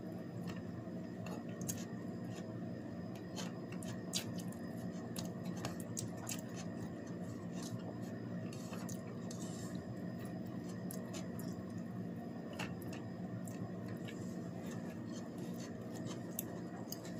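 Someone eating by hand from a plate: scattered small clicks and smacks over a steady low hum.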